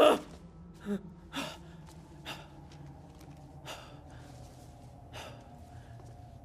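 A frightened young man gasping and breathing hard in short, ragged breaths, loudest right at the start, then about five more spread irregularly over several seconds. A faint steady drone runs underneath.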